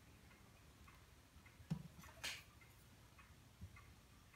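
Near silence with faint scattered ticks, broken about two seconds in by a soft thump and then a brief scuff as a clay mug and a brush tool are handled at a wooden workbench.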